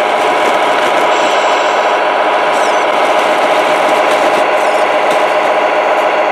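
Tamiya Globe Liner 1/14-scale RC truck driving slowly over gravel. A steady engine-like running sound from its MFC-01 sound unit mixes with a rasping scrape of tyres on the stones.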